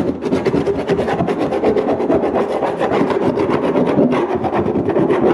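Rapid, continuous scraping and rubbing strokes on a boat's hull where the old transducer mount was removed. The old sealant is being worked off to leave the surface smooth for resealing.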